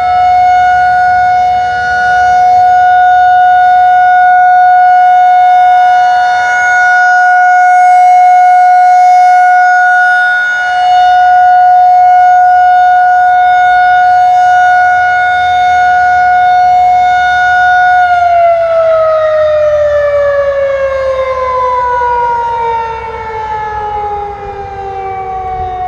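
Outdoor tornado warning siren sounding a steady tone during its monthly test, its loudness swelling and dipping every few seconds. About two-thirds of the way through, the pitch starts falling steadily as the siren winds down.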